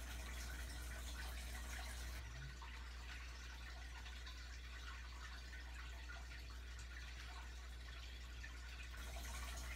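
Faint, steady trickle of water over a low, even hum, typical of an aquarium filter running.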